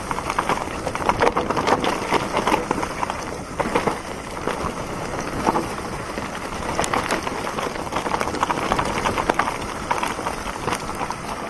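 Mountain bike riding down a rocky forest trail: tyres crunching over stones, gravel and dry leaves, and the bike rattling over the bumps in a steady crackle of small knocks.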